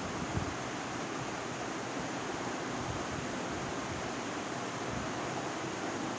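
Steady, even hiss of background noise, with a small thump about half a second in.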